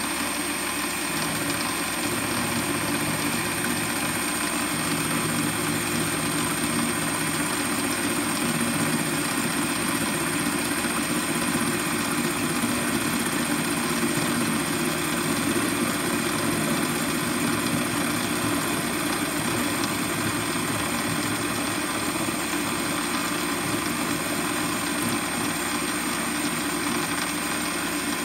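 Warco lathe running steadily, with a 10 mm end mill in the headstock collet milling a flat on a clamp bolt. A constant machine hum with a thin high whine above it.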